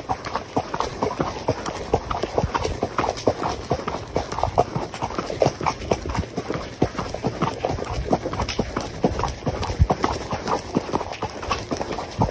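Horse's hooves striking a gravel trail under a rider, a steady run of hoofbeats with a gritty crunch.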